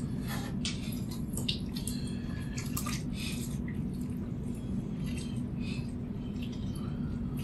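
Soup being stirred in a large stainless steel stockpot: liquid sloshing with scattered light scrapes and clicks of the spoon against the pot, busiest in the first few seconds, over a steady low hum.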